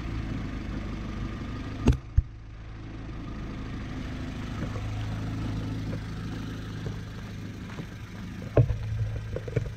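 Honda CRX Si engine idling steadily. Two sharp clicks sound about two seconds in, and another sharp knock near the end.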